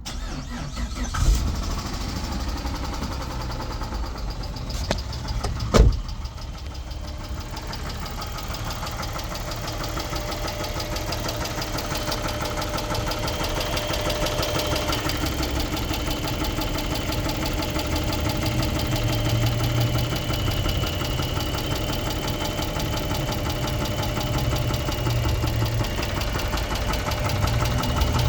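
2006 Chrysler 300's 3.5-litre V6 running with a rapid, even knock through the engine note, the knock the video is about. A sharp bang about a second in and a louder one about six seconds in.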